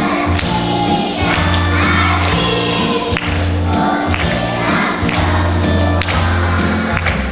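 A song with a group of voices singing over a backing track with a steady beat.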